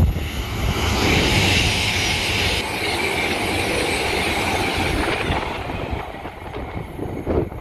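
A train passing at speed: a rush of wheel and rail noise that builds about a second in, holds, and fades away by about six seconds. Wind buffets the microphone at the start and near the end.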